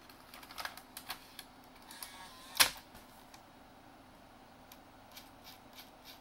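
Toshiba XM-3401B SCSI CD-ROM drive loading a disc: a few light clicks as the disc is set in the tray, a short motor whine as the tray draws in, and one loud clunk as it shuts and clamps the disc about two and a half seconds in. Faint ticking follows near the end as the disc spins up.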